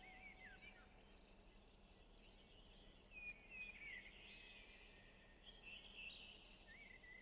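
Faint birdsong: small birds chirping and twittering in short, quick, rising and falling calls, scattered throughout.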